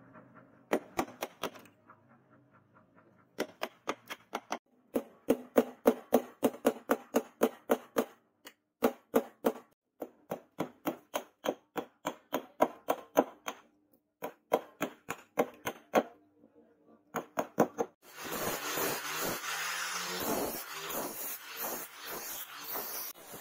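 Chisel struck rapidly with a hammer, carving a wooden knife handle: sharp blows about four a second in quick runs with short breaks. About eighteen seconds in, a hand-held power tool with a sanding disc takes over, running and grinding against the wood.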